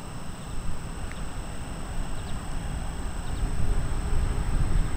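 Distant train approaching along the line: a low, uneven rumble that grows louder toward the end.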